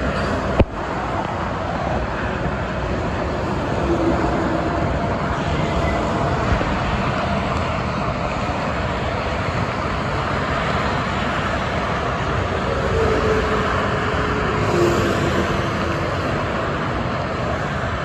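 Busy multi-lane expressway traffic passing below: a continuous wash of tyre and engine noise from cars and trucks, with a sharp click about half a second in.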